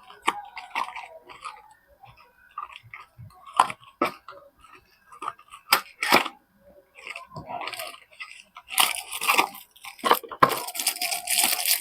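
Soap packaging being handled and unwrapped: scattered taps, clicks and short rustles, then from about nine seconds in a longer stretch of crinkling, tearing wrapper.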